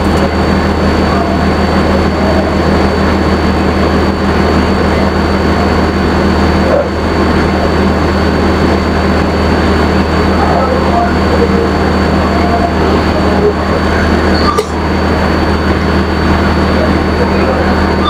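Commercial espresso machine pulling an espresso shot, its pump running with a steady low hum as coffee pours into the cup.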